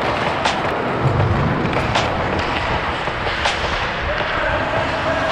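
Ice hockey skates carving and scraping the ice during play, a steady rushing noise with a sharp click about every second and a half.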